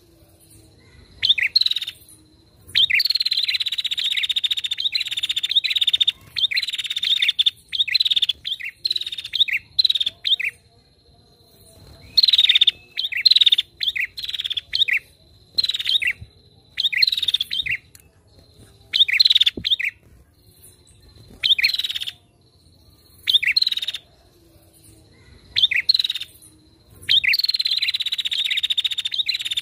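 Female prenjak (prinia) calling in repeated bursts of rapid, high chirping. The bursts come in quick succession, some short and a few running for several seconds, with brief pauses between them.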